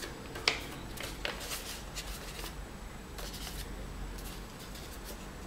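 Folded paper airplane made of printer paper being handled in the fingers: faint, scattered paper rustles and crackles, with one sharper crackle about half a second in.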